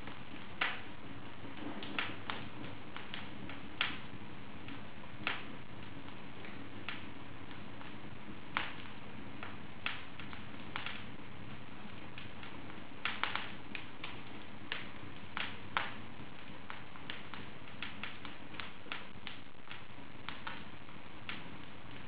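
Wood fire burning in an open fireplace, crackling with irregular sharp pops every second or two over a steady low hiss.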